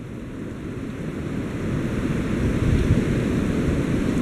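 Strong wind rushing through bare tree branches, with wind buffeting the microphone; it builds over the first second or so, then holds steady.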